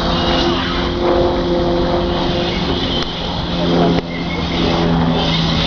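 GWR pannier tank steam locomotive approaching slowly along the platform with its train of coaches: a steady hum under a noisy rumble, with a hiss of steam growing near the end.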